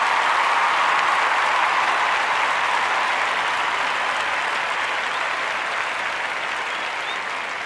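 Crowd applauding: a steady, dense wash of clapping that slowly fades.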